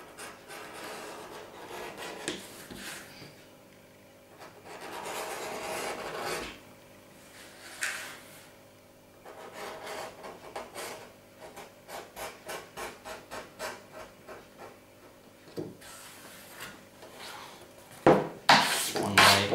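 Edge beveler scraping along the cut edge of a piece of leather, shaving off a thin strip to round the sharp edge. There are a few longer rasping strokes first, then quicker short strokes, about two or three a second. Near the end the leather piece is handled and moved, with a louder rustle and knocks.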